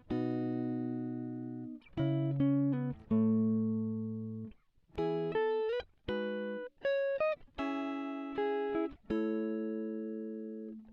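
Background music: a guitar-like plucked instrument playing a slow run of chords, each ringing out and fading before the next.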